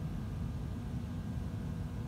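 Steady low rumble of background room noise with a faint hum, and no voice.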